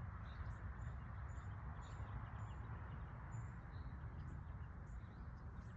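Small birds chirping: scattered short, high calls over a steady low background hiss.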